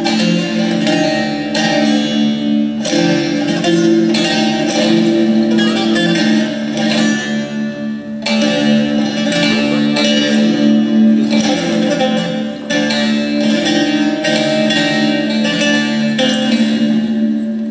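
Two bağlamas playing a Turkish folk dance tune together, quick plucked melody notes over steady ringing open-string drone notes.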